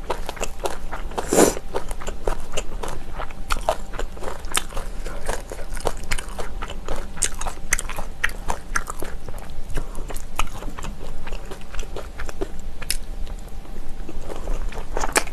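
A person chewing crunchy kimchi: a steady run of wet crunches and clicks, with one louder crunch about a second and a half in.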